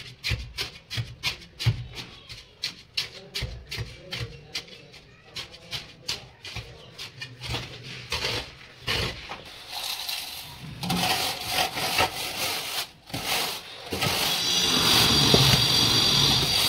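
Shovel scraping through a pile of sand and cement in quick repeated strokes as the tile-bed mortar is mixed. Near the end comes a louder, steady rasping rub as a long straightedge is dragged across the sand-cement bed to level it.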